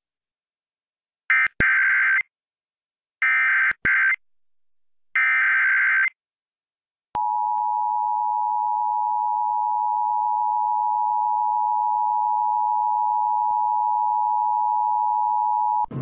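Emergency Alert System tones for a child abduction (AMBER) alert: three short bursts of SAME header data, each a harsh buzzing screech about a second long, then a second's pause and the steady two-tone attention signal (853 and 960 Hz) held for about nine seconds.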